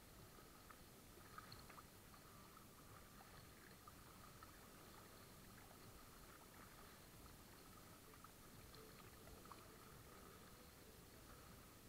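Faint lapping and small splashes of lake water against a kayak's bow as it is paddled through light chop.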